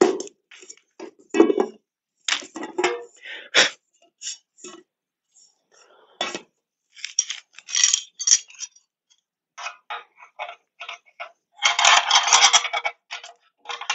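Nesting metal camp cookware being unpacked: lid, frying pan, stove unit and stainless bowl clink and clank against each other in many short knocks, with a longer, denser rattle near the end.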